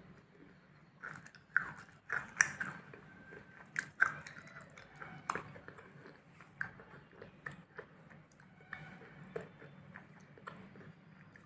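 Close-up chewing of a dark, powdery, soft food with a thin crunchy outer layer: several crisp crunches in the first five seconds or so, then softer, sparser chewing clicks.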